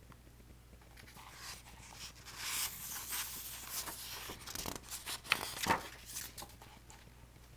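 Faint paper rustling and handling as a page of a picture book is turned, with a couple of light clicks.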